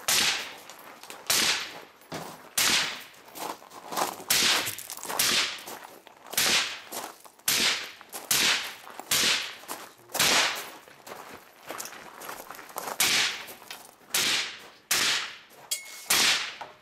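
Rifle shots fired in a steady string during a timed stage, roughly one a second at an uneven pace, each a sharp crack with a short echo tail.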